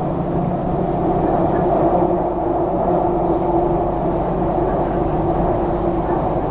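Onboard running noise of a CRRC Qingdao Sifang 'Q Train' metro car under way at steady speed: a continuous rumble of wheels on track with a steady hum from the traction equipment.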